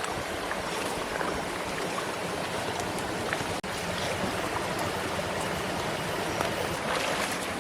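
Steady rush of flowing stream water with a few faint ticks, broken by a split-second dropout about three and a half seconds in.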